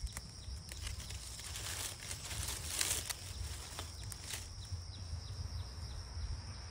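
Outdoor ambience: a steady, high-pitched insect drone with scattered sharp clicks and brief rustles.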